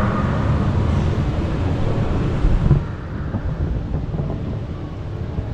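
Low, uneven rumble of wind noise on the camera microphone, turning a little quieter and duller about three seconds in.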